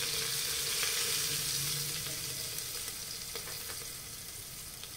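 Chopped garlic and freshly added paprika sizzling in hot oil in a pressure-cooker pot, a steady frying hiss that slowly dies down.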